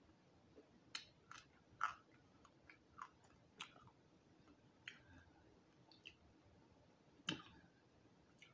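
Chewing crispy roasted quail with its small bones: scattered sharp crunches and crackles about once a second, the loudest about seven seconds in.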